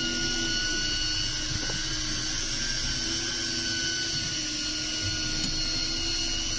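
Electric deep-drop fishing reel running, its motor giving a steady whine as it winds line in with a fish on.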